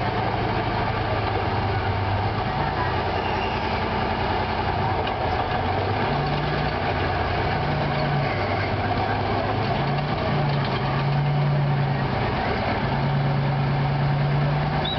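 BMP-2 infantry fighting vehicle's diesel engine running as the vehicle drives slowly. The engine note steps back and forth between a lower and a higher pitch every second or two.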